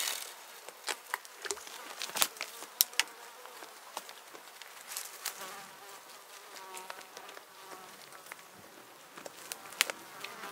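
Spinning fishing reel and line as a lure is cast and reeled back in, with quick sharp clicks scattered throughout and a faint wavering whir about halfway through.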